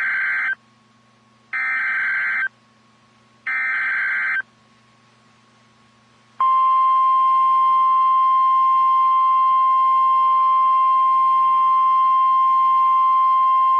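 NOAA Weather Radio Emergency Alert System signal. Three short buzzy bursts of SAME digital header data, about a second each with a second's gap between them, are followed about two seconds later by the steady, loud weather radio alert tone, which holds on. Together they announce a new warning, here a tornado warning.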